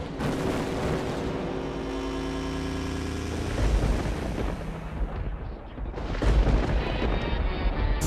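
Soundtrack music with held tones and deep, booming bass hits, the strongest about three and a half seconds in and again around six seconds.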